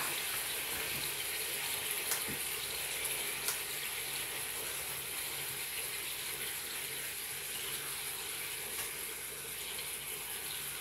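Bacon-wrapped chicken sizzling steadily inside a hot flip-style waffle maker: an even, fine frying hiss with a few faint ticks.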